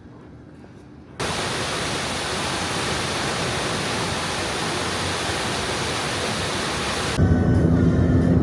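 Steady, even rush of falling water, like a waterfall, starting abruptly about a second in and cutting off suddenly near the end. Background music with low sustained tones takes over.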